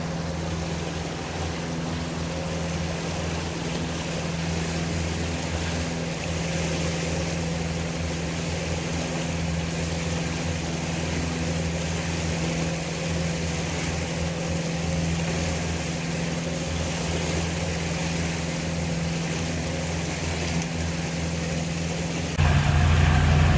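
Boat engine running steadily with a constant low hum, over a steady rush of water and wind. Near the end the sound suddenly gets louder.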